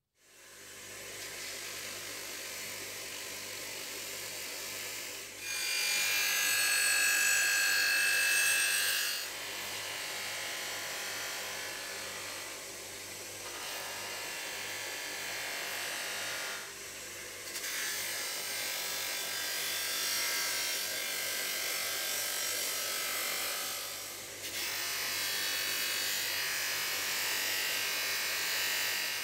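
Electric bench grinder running with a steady hum while the steel ripping tine is pressed against its spinning wheel, giving a rasping grind. The grind is loudest, with a high squeal, from about 5 to 9 seconds in, and comes back in two stretches in the second half.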